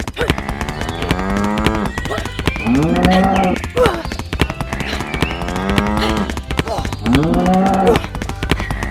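Cattle mooing: two long calls about every four seconds, repeating in the same pattern, over a steady low hum.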